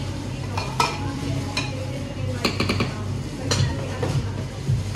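Cutlery clinking against dishes in a series of sharp clinks, over a steady background hum and hiss.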